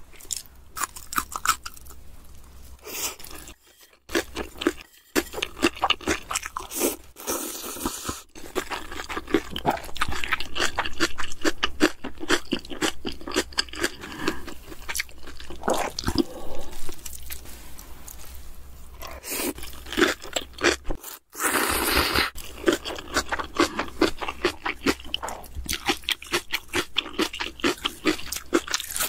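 Close-miked chewing and crunching of food, mukbang-style: a quick, dense run of mouth clicks and crunches, broken by a few short pauses.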